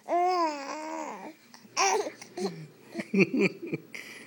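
Baby cooing: one long, high-pitched drawn-out sound that bends up and down. It is followed by a run of short, choppy babbling sounds made with his fingers in his mouth.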